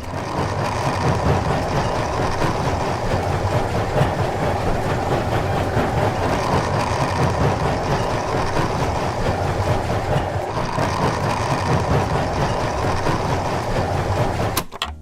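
A small motor running steadily with a dense rattle, starting suddenly and cutting off near the end, typical of a miniature construction machine at work.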